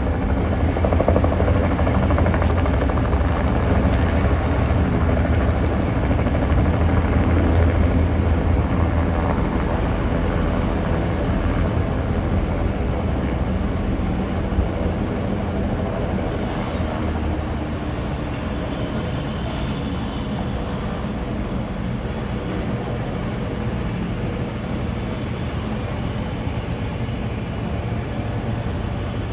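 Helicopter rotor and engine running steadily with a strong low beat for the first ten seconds or so, then gradually getting quieter.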